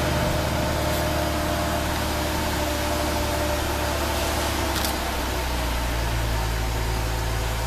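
Steady mechanical hum, even throughout, with a faint click a little before five seconds in.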